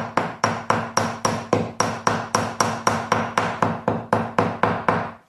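Small hammer tapping rapidly and evenly on a staple, about three strikes a second, driving down a staple left standing proud in the wooden cushion rail where it hit a knot. The tapping stops just before the end.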